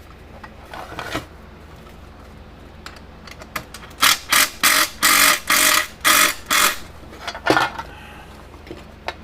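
Powered screwdriver or drill driving a screw in a string of short buzzing pulses, about seven in quick succession over three seconds and one more a moment later, after a few light clicks of handling.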